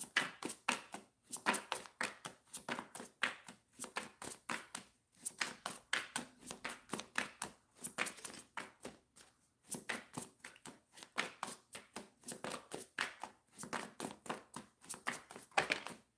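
Tarot deck being shuffled by hand: a long, irregular run of soft card flicks and taps, several a second.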